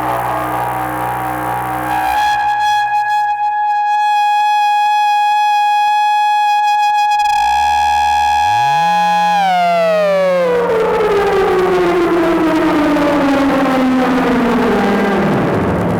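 EMS VCS3 'Putney' analogue synthesizer's oscillators sounding: a buzzy chord gives way about two seconds in to one steady held tone, then the pitches start to glide, one sweeping slowly downward over the last several seconds while a low tone holds underneath. The oscillators beat against each other, the sound the player calls so unique.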